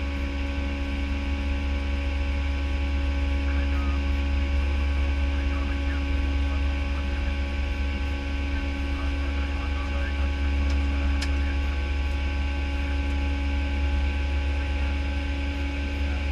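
Steady cockpit noise of an Airbus A319-115 climbing after takeoff: a deep, even rumble with a steady hum over it.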